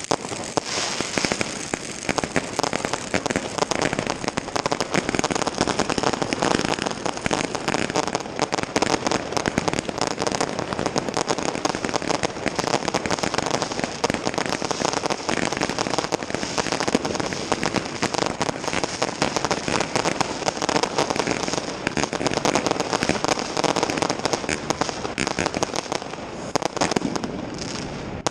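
Dense fireworks and firecrackers going off all around, a continuous rattle of many overlapping bangs and crackles with no pause.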